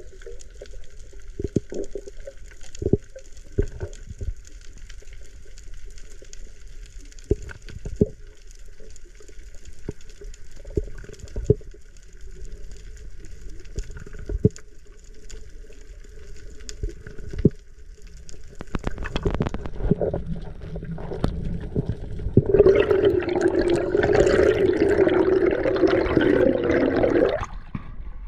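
Water heard through an underwater camera: scattered clicks and knocks over a faint hum, then a louder rush of water for about five seconds near the end.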